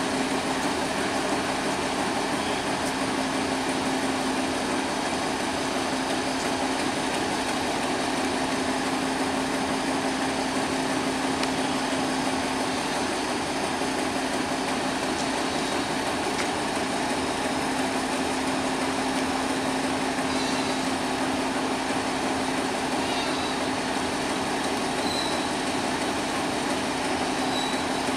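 Idling diesel railway engine giving a steady, unchanging hum with a constant drone note.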